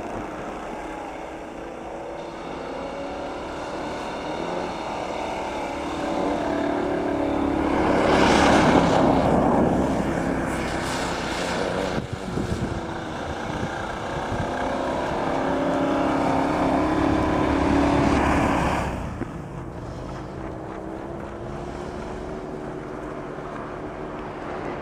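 Nissan Patrol's engine working hard off-road, revs wandering up and down, with a rushing noise swelling about a third of the way in. It stays loud until about three-quarters through, then falls away as the vehicle eases off or moves off.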